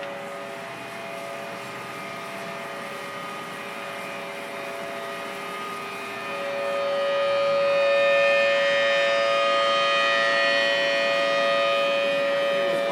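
Tsunami warning siren sounding a steady, unwavering tone. It grows louder about six seconds in and then holds at that level.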